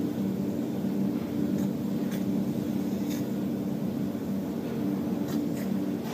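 Spray-foam rig running while foam is sprayed from the gun: a steady machine hum with two low tones over a broad hiss, with a few faint ticks around two and three seconds in and twice after five seconds.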